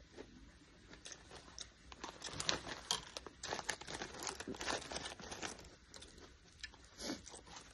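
Irregular crackling and rustling, a dense run of small clicks and crunches from about two to five and a half seconds in, with a single louder crackle near the end.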